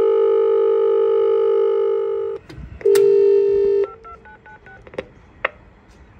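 Station help-point intercom speaker playing telephone-line tones: a steady dial tone for about two and a half seconds, a second shorter tone, then a quick run of short dialing beeps and two clicks. They come between two plays of the recorded next-train announcement.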